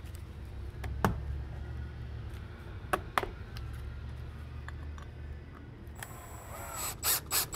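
A few light clicks of a metal door hinge leaf and screw being handled against the wooden jamb. Near the end, a DeWalt cordless drill/driver runs in a few short spurts, driving a screw through the hinge into the jamb.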